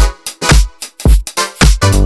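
Electronic dance music with a punchy kick drum and sliding bass notes.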